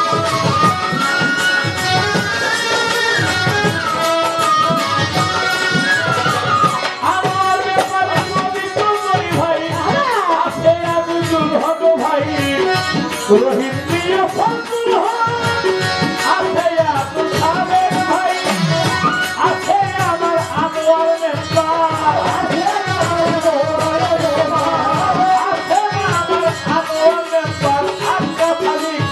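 Bengali folk pala gaan music: tabla played in a fast, busy rhythm under a gliding melodic line.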